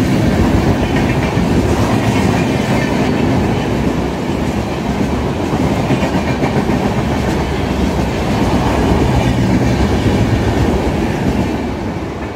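A train running past at speed, its wheels clattering steadily over the rail joints, fading slightly near the end.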